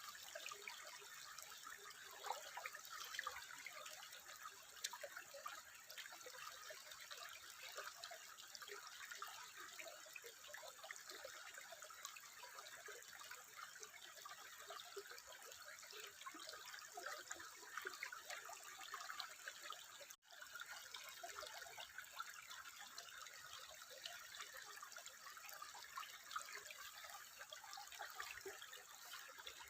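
Water trickling steadily, a continuous patter of many small splashes and drips, broken by a momentary dropout about twenty seconds in.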